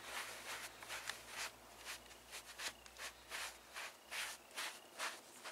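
A foam applicator pad rubbed in circular motions over a recliner's leather-look upholstery, working in recoloring balm: a faint, even swishing, about three strokes a second.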